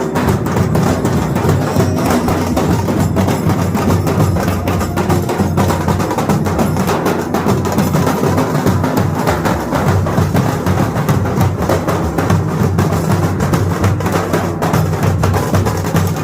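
Loud, percussion-heavy music with continuous, busy drumming.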